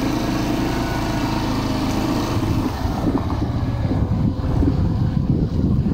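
Motor scooter's small engine running at low speed on a rough gravel track. A steady hum gives way about three seconds in to a rougher, noisier low rumble.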